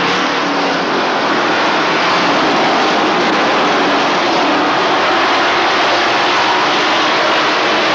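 A pack of race trucks' engines running steadily around the oval, a continuous loud drone with no single truck standing out.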